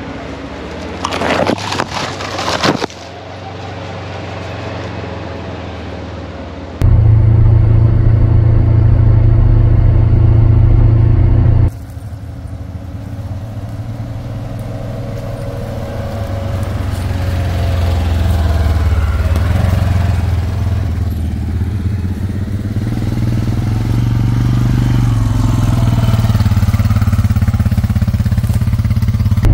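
Off-road vehicle engine running while driving along a trail, steady with some slow rises in pitch. The sound jumps abruptly in loudness twice, as clips are cut together, and there is a brief burst of rough noise a few seconds in.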